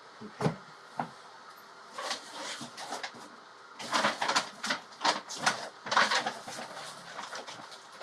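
Hands rummaging through paper and small objects, with rustling and crinkling and light knocks coming in irregular bursts.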